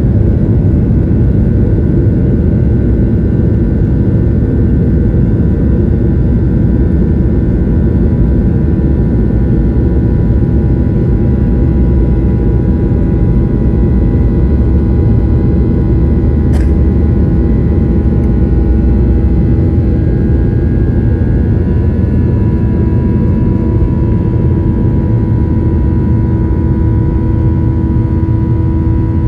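A Boeing 737-800's two CFM56 turbofan engines at full takeoff power, heard from inside the cabin over the wing during the takeoff roll. A steady, loud low rumble runs under a steady whine.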